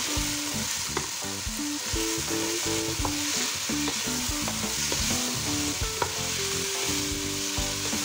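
Masala-coated chicken, onions and tomato sizzling on high heat while a wooden spatula stirs and scrapes them around a nonstick pot, with occasional sharp taps of the spatula against the pan.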